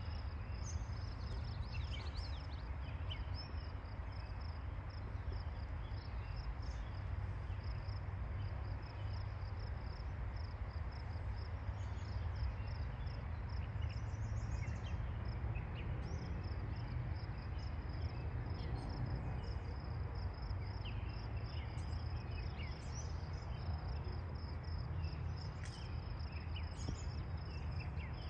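Outdoor ambience: a steady high-pitched pulsing insect trill over a low steady rumble, with a few faint bird chirps.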